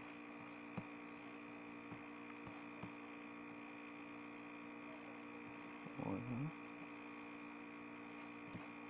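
Steady electrical hum with a few faint clicks, and a brief murmured voice about six seconds in.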